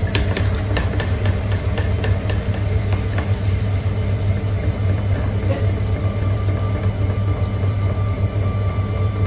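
Electric potter's wheel running steadily at speed, its motor giving a low hum, while wet clay is squeezed and coned up under the hands on the spinning wheel head. A few light ticks sound in the first few seconds.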